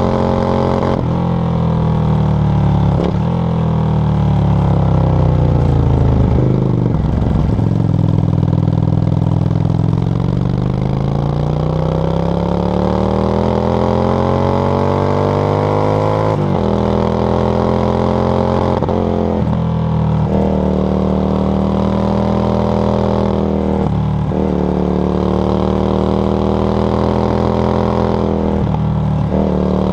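Yamaha XV535 Virago's V-twin running through a SilverTail K02 aftermarket exhaust while riding. The revs fall for several seconds, then climb steadily for about eight seconds, followed by several gear changes, each a brief dip, with steady revs between them.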